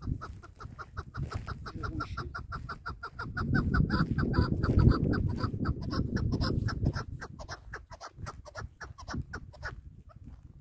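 Chukar partridge calling a long, rapid run of short clucking 'chuk' notes, about five a second, slowing and thinning out after about seven seconds and stopping just before the end. A low rumbling noise swells under the calls about four to five seconds in.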